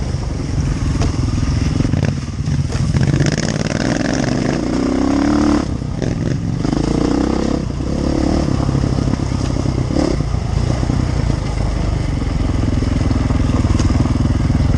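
Motorcycle engine running while riding a trail, its revs rising and falling, with a clear rise in pitch about four to five seconds in.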